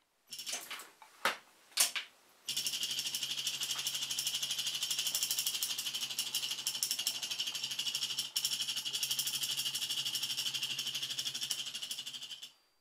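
A few clicks and knocks, then an Arduino-driven stepper motor starts about two and a half seconds in and runs steadily with a buzzing whine and a fast pulsing, stopping near the end.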